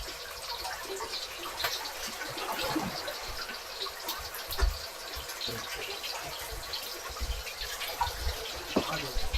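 Water splashing and sloshing in irregular small splashes and drips, with a few dull low knocks.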